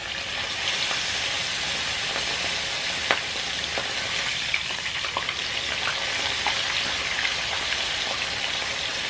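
Mojarra fish frying in hot oil in a skillet: a steady sizzle that swells up as the fish goes into the oil, with scattered pops and crackles and one sharper pop about three seconds in.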